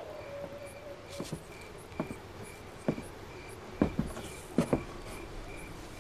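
Crickets chirping steadily, a little more than two chirps a second, with a series of sharp knocks about once a second over them, the loudest about four seconds in.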